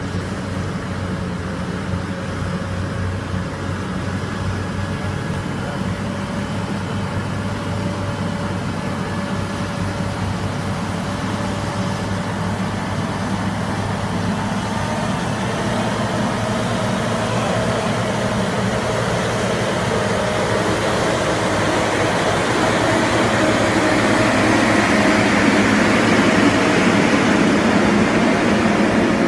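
Heavy-haul truck's engine running with a steady low drone as it slowly moves a super load on a many-axle trailer. The rumble of the tyres and trailer grows louder over the second half as the load rolls close past.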